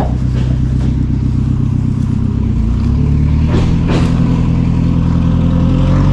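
An engine running steadily, its speed stepping up about three seconds in and again near the end, with two sharp clanks in the middle.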